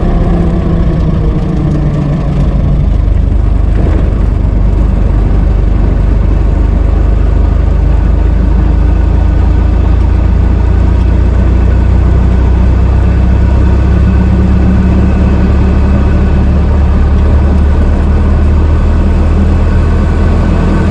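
Old car engine running: its revs fall away over the first few seconds, then it settles into a steady, even run.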